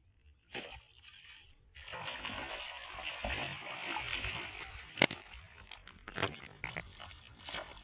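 A big rohu thrashing and splashing at the surface as it is hauled out on a fishing pole, then a sharp knock and the fish flopping on the wet grassy bank.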